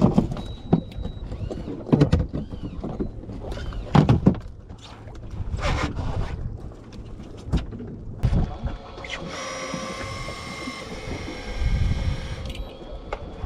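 Knocks and clatter of catch and gear being handled on a fishing boat over a steady rumble, then a steady mechanical whine for about three seconds starting around nine seconds in.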